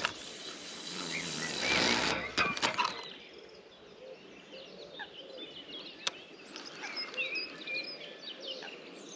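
Swish of a carp rod being cast, with line running off the spinning reel, building for about two seconds and cutting off, followed by a few clicks from the reel. Birds chirp throughout.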